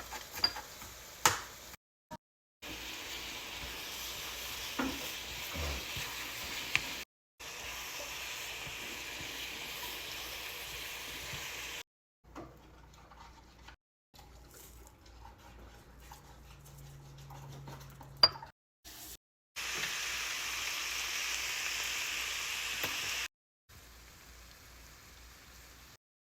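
Food frying and sizzling in a hot pan, heard in several short stretches that start and stop abruptly. There are a few sharp clicks near the start.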